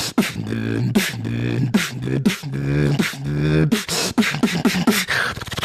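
A human beatboxer performing: short hummed low bass notes alternate with sharp snare- and hi-hat-like mouth sounds in a steady beat. Near the end the bass notes drop out and hissy hi-hat sounds lead.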